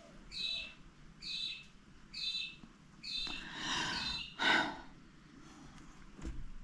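A bird calling: three short chirps about a second apart, then a longer, louder call about three to four and a half seconds in.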